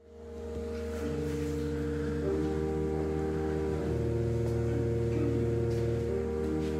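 Church pipe organ playing slow, sustained chords over a held low bass note, fading in at the start, with new notes entering and dropping out as the harmony changes.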